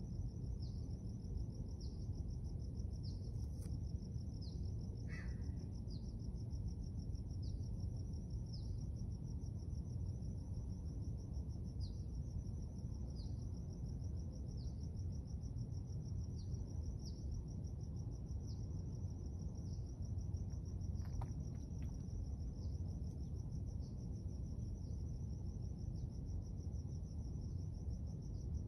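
Crickets or other insects trilling steadily and high-pitched throughout, with a few brief bird calls, over a steady low rumble of outdoor background noise.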